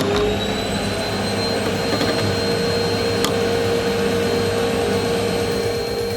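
Vacuum cleaner motor finishing its spin-up at the start and then running steadily with a high whine, sucking dust out of a refrigerator's machine compartment. A single light click about three seconds in.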